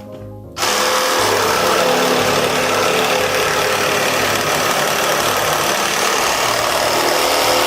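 Meec Tools Multi Series cordless reciprocating saw cutting through a thicker piece of wood. The loud, steady cutting noise starts about half a second in and keeps running.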